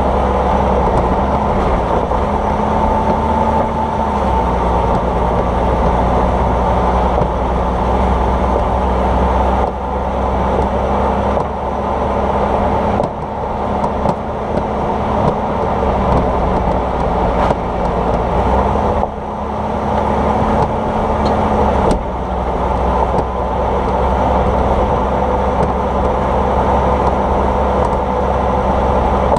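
Car driving, with steady road and running noise, and a few scattered knocks: the suspension clunk the owner is trying to trace to the shock absorber area.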